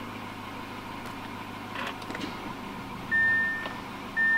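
A car's warning chime, a steady high beep, sounds once about three seconds in and starts again near the end, about a second apart. Warnings from a car that is powering up on a dead battery.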